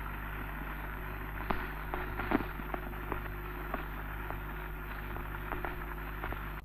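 Surface noise of an old film soundtrack: a steady low hum with hiss and irregular crackle, pops and clicks scattered throughout.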